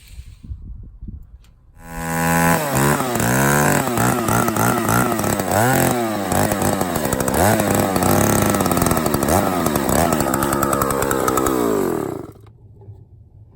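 Chainsaw running, starting about two seconds in and revving up and down repeatedly, then cutting off sharply near the end.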